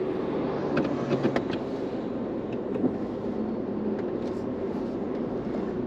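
Car cabin noise while driving slowly: a steady low engine and road rumble, with a few faint clicks about a second in.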